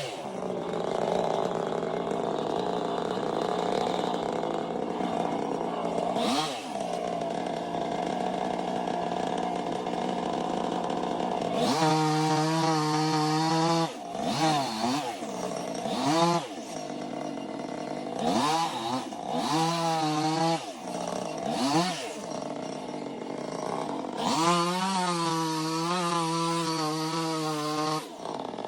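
Two-stroke chainsaw running, its engine pitch dropping and rising again several times as the throttle is let off and opened, held steady at high revs for a couple of seconds near the middle and again near the end before it cuts off.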